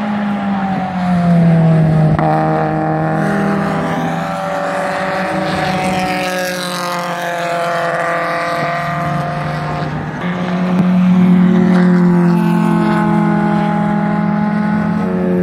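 Birkin Seven race cars going past at speed one after another, their engines running hard, the note falling as each goes by and rising again as they accelerate. Loudest about a second in and again around eleven seconds.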